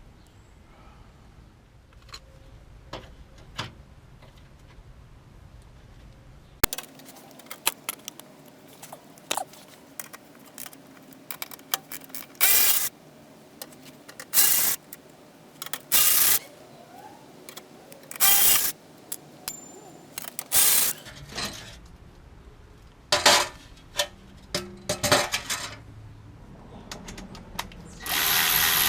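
Irregular short metallic clinks and clatters of tools and loose fasteners being handled, starting about a third of the way in. Near the end a cordless impact wrench starts running steadily.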